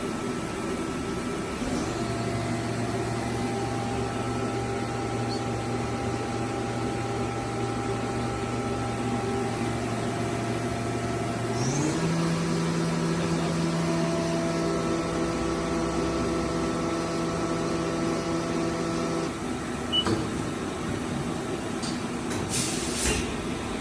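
Haas DM-2 vertical machining center running: a steady motor whine that steps up to a higher pitch about halfway through and stops a few seconds later, followed by a few sharp clicks and knocks near the end.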